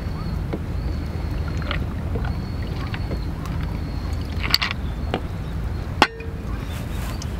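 Spirit poured from a large bottle over ice in a tall glass, with faint ice clicks, over a steady low rumble. About six seconds in, a can is set down on the table with a sharp knock.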